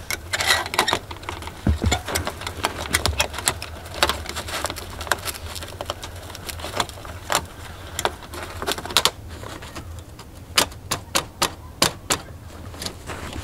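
Irregular sharp metallic clicks and clinks of a metal S-hook being fitted between a wood-stove's titanium chimney pipe and its cap, metal tapping on metal under gloved hands.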